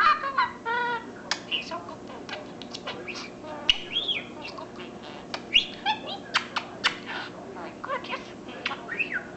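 Budgerigar chattering: a rapid, continuous string of short chirps, clicks and warbled whistles that rise and fall in pitch.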